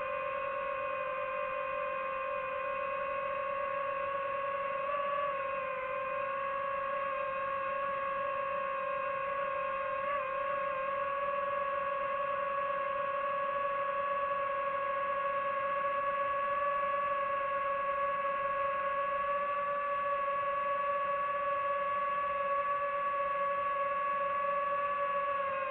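DJI FPV drone's motors and propellers whining steadily as it flies, the pitch wavering slightly about five and ten seconds in and creeping up a little later on.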